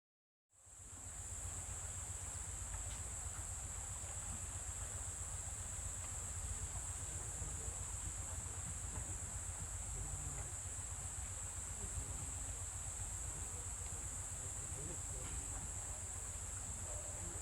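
Outdoor field ambience starting about half a second in: wind buffeting the microphone as a low rumble, under a steady high-pitched buzz like insects calling.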